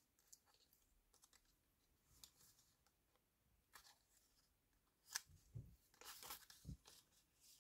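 Faint scratching, crinkling and light tearing of plotter-cut film being weeded with a weeding pen, the waste picked out and peeled away from the lettering. Scattered ticks at first, then a busier run of crackles and a couple of soft knocks from about five seconds in.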